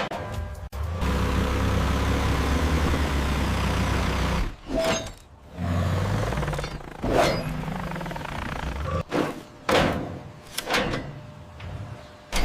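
Heavy vehicle engine rumbling with a steady hiss for about three seconds, followed by a string of short separate knocks and whooshes.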